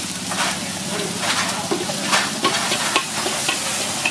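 Oil sizzling and spitting in a wok over a high flame as it is stirred, with repeated short scraping strikes of a metal utensil against the wok.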